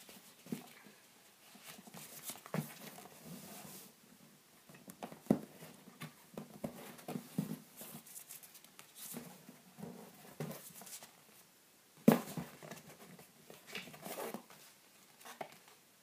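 A small printed paper cut-out being folded and creased by hand: scattered paper rustling and crinkling, with two sharp taps, about five seconds in and about twelve seconds in.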